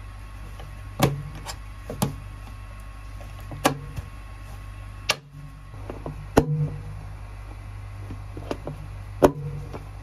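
Hand pop-rivet tool setting blind rivets, with a sharp snap every second or two as the tool is squeezed and the rivet mandrels break, over a steady low hum.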